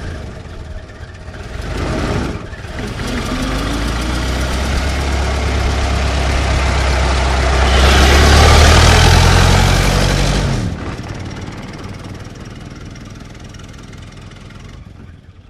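Old car's engine running, building in loudness to a peak about eight to ten seconds in. The engine note then drops and cuts away suddenly, and the sound fades out.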